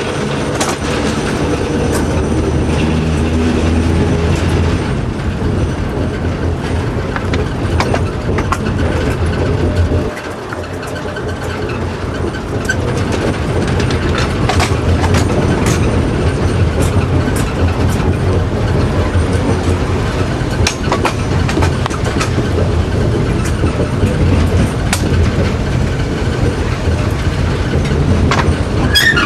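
TEM2 diesel shunting locomotive running along the track, heard from the cab: a steady diesel engine rumble under the noise of the wheels on the rails, with scattered sharp clicks as the wheels cross rail joints.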